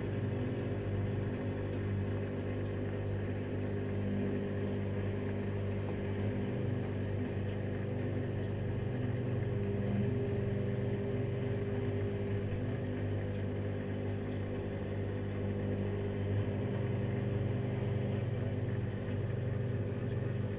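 AEG Lavamat L 1049 washing machine running steadily with a drum turning under the motor, giving a constant hum with a few faint high clicks. This is the machine that throws its drive belt, and the fault shows itself at high drum speeds.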